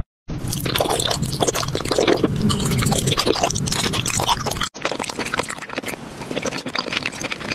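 Chewing and crunching of candy, a dense crackle of small crunches with a brief break just under five seconds in.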